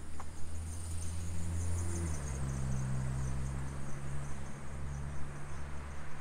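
Insects trilling in rapid, high-pitched pulses over a low steady mechanical hum, which steps up in pitch about two seconds in.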